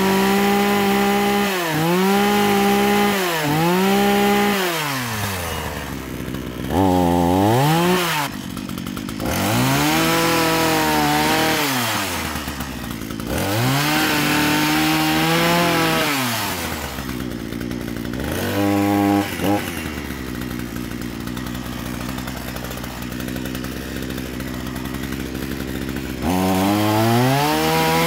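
Petrol chainsaw, a two-stroke engine, revved up and down over and over: each time the pitch rises, holds for a moment and falls back. It idles for several seconds, then revs up again near the end.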